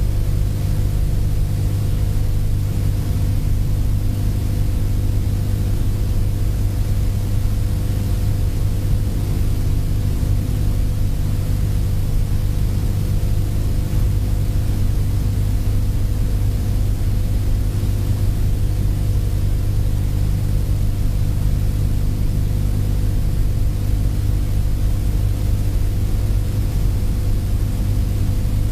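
A steady low hum with a hiss over it, unchanging throughout.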